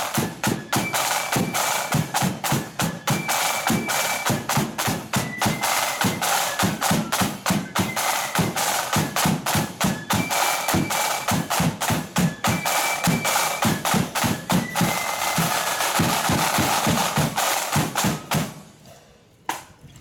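Marching flute band's snare drums playing a fast, rattling street beat with rolls over a bass drum, with a few brief high notes above. The drumming cuts off suddenly near the end.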